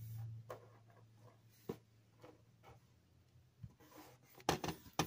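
Light, scattered taps and clicks of a small toy dog figurine and sugar-coated gummy candy cubes being picked up, set down and pushed on a wooden tabletop, the sharpest clicks near the end. A low hum fades out in the first half second.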